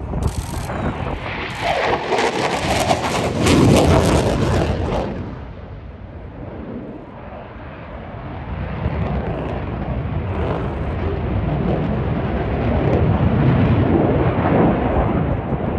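Eurofighter Typhoon FGR4 fighter jet's twin Eurojet EJ200 engines during a display pass: loud, crackling jet noise with a falling pitch, peaking about three to four seconds in, easing off, then building again toward the end.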